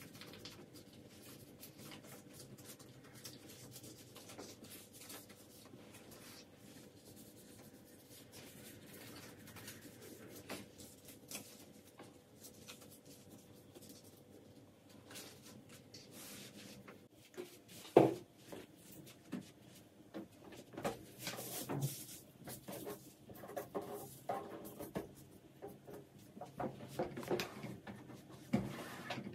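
Household handling sounds: soft rubbing and scraping, then one sharp knock a little past halfway, followed by a run of lighter knocks and clatters.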